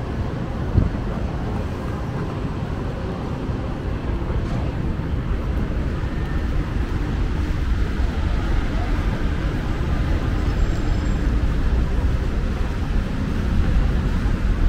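Steady city road traffic: a low, continuous rumble of passing cars and buses that slowly grows louder, with one short knock about a second in.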